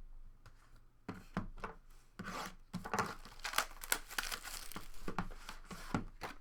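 A trading card pack being torn open, its wrapper crinkling, with a run of rustles and sharp clicks from handling the packaging and cards.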